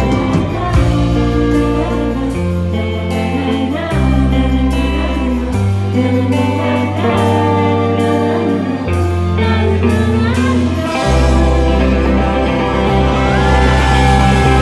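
Live indie rock band playing: electric guitars, bass and drums under singing, with the bass moving through held notes and drum hits marking the beat.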